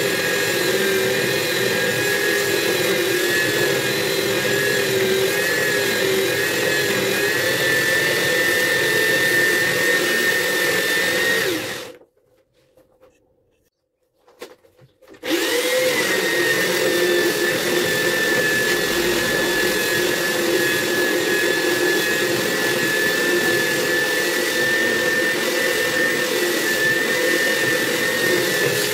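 Handheld electric belt sander running steadily against a wooden slab tabletop, its motor giving a constant whine. The sound cuts out for about three seconds partway through, then the sander runs again.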